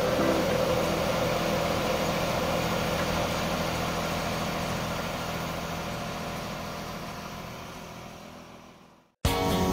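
Mobile crane's diesel engine running steadily while the crane holds a sailboat in slings, fading out over the last few seconds.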